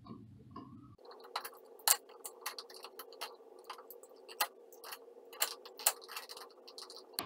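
Utility knife blade cutting and scraping insulation off electrical wire, heard as irregular sharp clicks and ticks over a faint steady hum. The clicks start about a second in.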